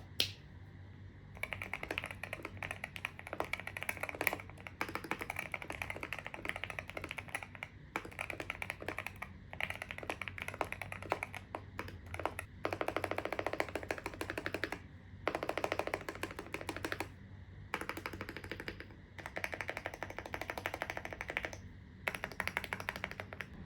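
Typing on a hall-effect mechanical keyboard with magnetic switches and an aluminium case. Fast runs of keystroke clicks are broken by short pauses, with several stretches of rapid, continuous key presses.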